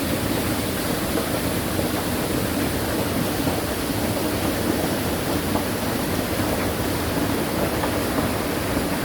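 Mountain stream water rushing, a steady noise.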